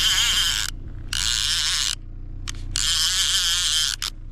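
Fishing reel buzzing in three bursts of about a second each while a hooked brook trout is fought, over a steady low hum.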